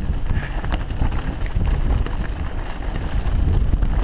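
Mountain bike ridden fast on a dirt trail, heard from an action camera: wind buffets the microphone in a heavy rumble, while the tyres and bike give many quick clicks and rattles over rough ground.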